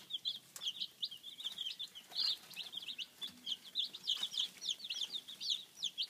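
A group of young chickens peeping: many short, high-pitched chirps overlapping continuously, several a second.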